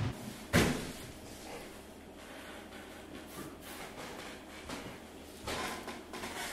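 A sharp knock about half a second in, then scattered rustling and a longer crinkling rustle near the end: bare feet stepping across plastic sheeting laid on a wooden floor.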